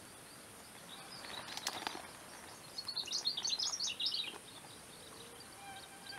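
A bird's rapid run of high chirps, lasting about a second and a half and starting about three seconds in, over steady outdoor hiss, with a few faint clicks shortly before.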